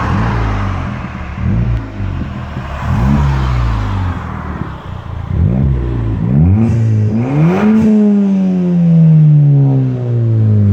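Ford Fiesta ST180's turbocharged 1.6-litre four-cylinder through a Milltek non-resonated race exhaust with the rear silencer removed, heard from inside the cabin. Several short blips of the throttle, then a longer rev climbing to a peak near eight seconds in and falling slowly away.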